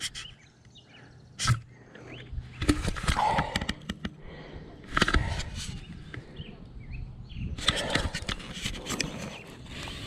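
Mountain bike rolling down a rocky dirt trail: tyres crunching over dirt and loose stones, with clicks and rattles from the bike in uneven bursts.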